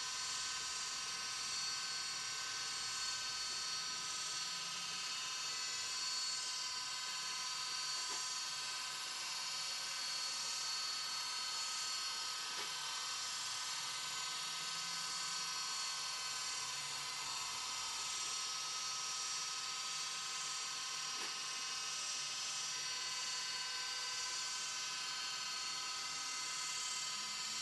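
Desktop mini CNC metal lathe running, its spindle turning a pointed, bullet-shaped workpiece as the carbide insert tool cuts along the taper. It makes a steady high whine of several tones.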